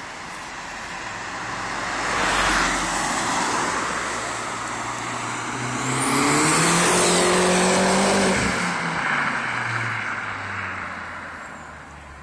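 Seat Leon Cupra R's tuned turbocharged four-cylinder, through a Blue Flame cat-back exhaust, pulling hard under acceleration: the revs climb steeply and it is loudest from about six to eight and a half seconds in, then the pitch drops and the sound fades away.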